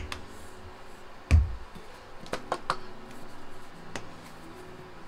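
A plastic squeeze bottle of honey set down on a stone countertop with a dull thump about a second and a half in. This is followed by a few light clicks and knocks of bottles being handled.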